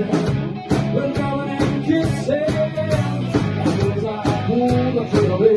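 Live rock band playing a blues-rock number: electric guitar, bass guitar and a drum kit together, with bending guitar-range notes over a steady bass line and regular drum hits.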